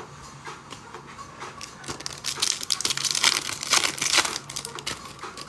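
Foil wrapper of a trading-card pack crinkling and tearing as it is ripped open. The crackling gets dense and loud about two seconds in, then thins out near the end.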